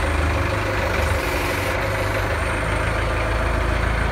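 Heli forklift engine running steadily at idle, a constant low engine rumble.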